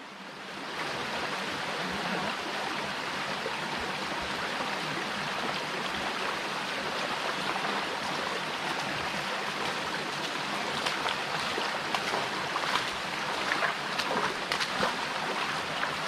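Steady rushing water, like a stream flowing, with scattered sharp clicks in the last few seconds.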